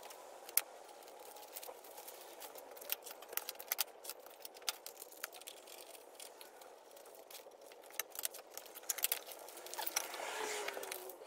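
Paper templates and small wood pieces being handled on a workbench: light rustling with scattered sharp clicks and ticks, coming in irregular clusters.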